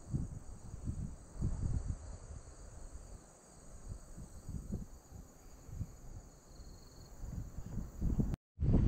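Wind buffeting the microphone in uneven low gusts over a faint, steady high-pitched drone. The sound drops out for a moment near the end.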